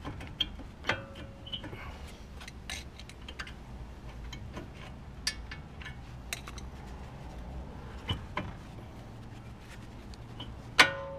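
Scattered metallic clicks and knocks of a tool levering at a stuck, rusty car brake caliper. Near the end comes one loud clang that rings on briefly.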